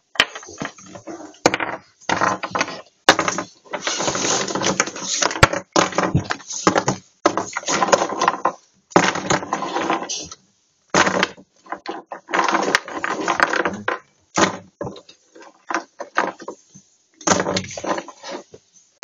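Irregular rustling and clattering of small objects being handled and rummaged through close to the microphone, with a few sharp clicks.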